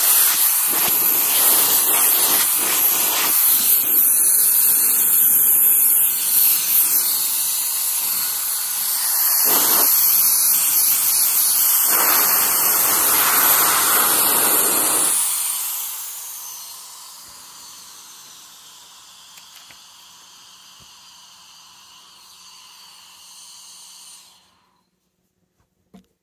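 KiCA Jetfan handheld electric air blower running at speed: a high-pitched motor whine over a loud rush of air. About 15 seconds in it falls away to a much quieter whine, which cuts off suddenly near the end.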